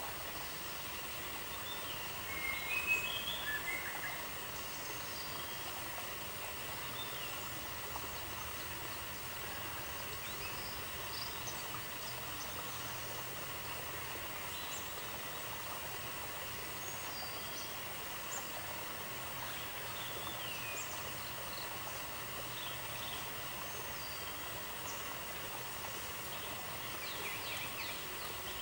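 Steady outdoor background hiss with scattered short bird chirps and calls over it. There is a brief burst of chirping about two to four seconds in.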